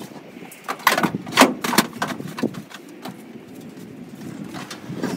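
Knocks and thuds of a lawn tractor with a flat tire being shoved across a cargo van's metal floor, four or five sharp hits in the first two and a half seconds, then quieter.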